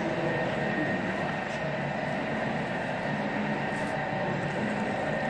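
Stainless-steel dumpling-making machine running, a steady mechanical hum with a faint high whine and a few light clicks.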